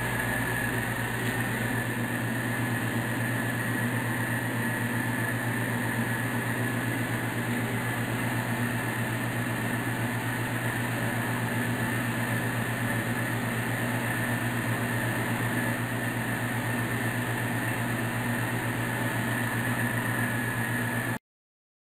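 A steady machine-like hum with constant low tones and a thin higher whine, unchanging throughout, that cuts off abruptly near the end.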